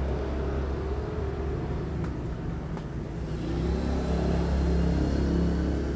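Steady low rumble of a motor vehicle engine, with the engine note growing louder a few seconds in, as of a vehicle passing close by.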